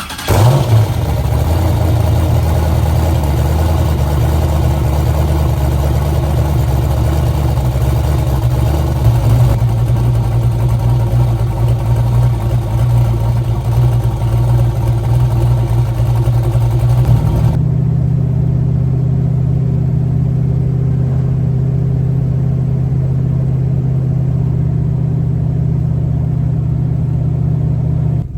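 Turbocharged LS 5.3 V8 with a new turbo camshaft, just started and idling with a choppy cam idle. The idle note shifts about nine seconds in and again about eighteen seconds in.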